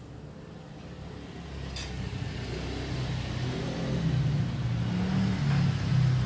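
A motor vehicle's engine running and growing steadily louder, with a short click about two seconds in.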